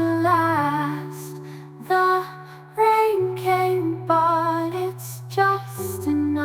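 AI-generated ballad music without words: a melody in short phrases, some notes with vibrato, over held low bass notes that change every couple of seconds.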